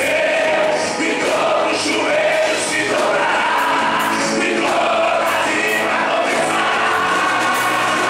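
Live gospel hymn: a male singer singing through a microphone over instrumental backing with a steady beat, while the congregation sings along.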